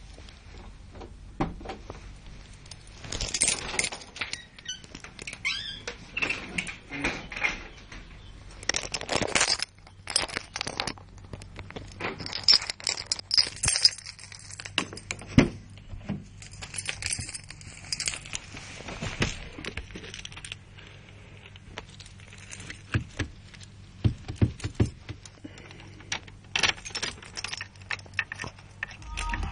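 Car keys jangling, with irregular rattles, clicks and knocks from handling in the car.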